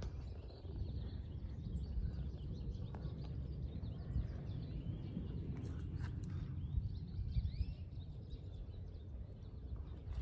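Songbirds chirping and singing in many short, quick phrases, busiest in the middle of the stretch, over a steady low rumble.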